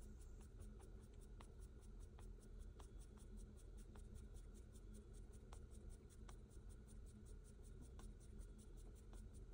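Near silence: low room tone with a run of faint, quick light clicks or scratches, several a second.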